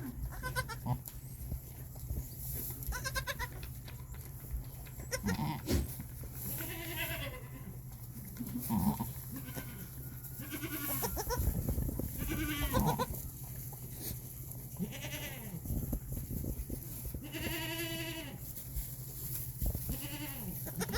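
Goats bleating, a string of separate calls coming every second or two, over a steady low hum.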